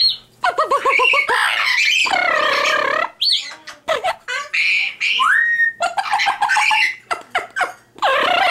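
Amazon parrot calling in a wound-up, excited run of squawks, chatter and shrill shrieks, with a quick stutter of repeated notes about a second in and a single rising whistle past the middle.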